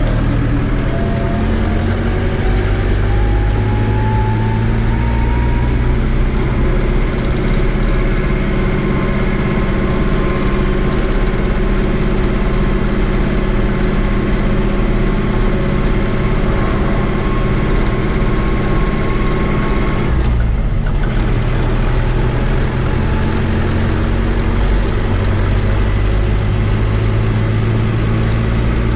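Fiat 80-90 DT tractor's four-cylinder diesel engine running steadily on the road, heard from inside the cab, with a whine rising in pitch over the first few seconds as it picks up speed. About twenty seconds in, the sound briefly dips, then picks up again.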